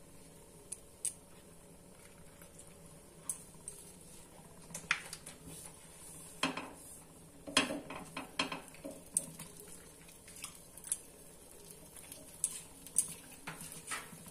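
Fingers pressing and spreading crumbly sandesh filling along a crepe in a nonstick pan: scattered light taps and clicks, busiest through the middle, over a faint steady hiss.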